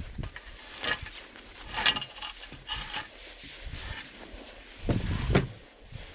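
Dead wild boar being dragged by rope up an aluminium ladder ramp into a pickup bed: scraping and rustling in short pulls about a second apart, then a louder thud about five seconds in.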